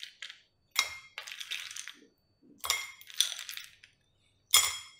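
Ice cubes dropped one at a time into a tall drinking glass, clinking against the glass three times, each with a short ringing and rattle.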